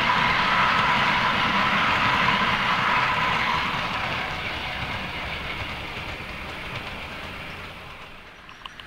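Model railway wagons rolling past on the track, a steady rumble and wheel clatter that fades away from about three and a half seconds in as the train runs off round the curve. A small click near the end.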